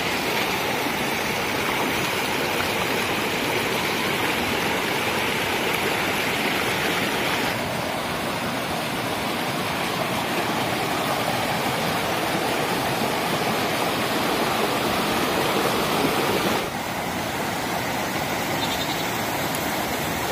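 Rushing water of a rocky mountain stream pouring over stones, a steady rush that shifts in level twice.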